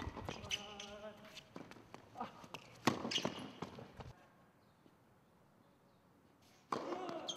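Tennis balls being struck by rackets and bouncing on a hard court: a series of sharp knocks, the loudest about three seconds in, with voices alongside. The sound drops suddenly to a faint hush about four seconds in, and voices and hits return near the end.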